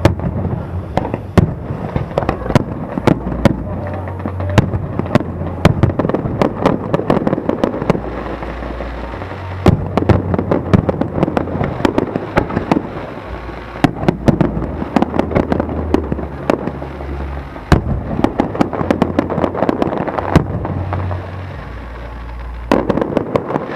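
Aerial fireworks display: a dense, continuous barrage of sharp cracks and bangs from bursting shells over a heavy low rumble.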